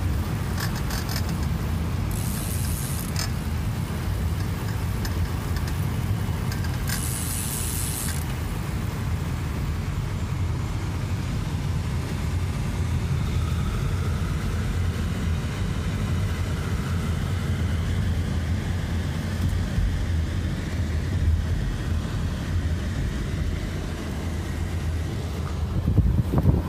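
Steady low rumble of a car driving slowly, its engine and tyres on the road heard from inside the cabin. Two short hissing bursts come about two and seven seconds in, and a few bumps near the end.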